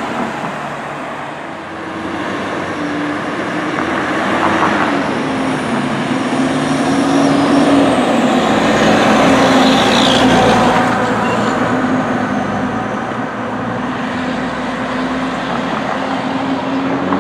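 Fire truck engine running as the truck drives past with a steady low drone, louder as it goes by about eight to eleven seconds in, over street traffic noise.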